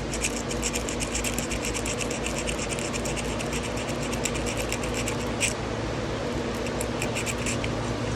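A hand tool scraping rust and gunk from inside an old carbon-steel pocket knife, in quick scratchy strokes several a second, with one sharper scrape about five and a half seconds in, a short pause, then a few more strokes near the end. A steady fan hum runs underneath.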